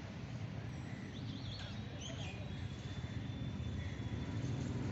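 Outdoor background noise: a steady low rumble, with a few short bird chirps about one to two and a half seconds in and a thin high steady whistle after them.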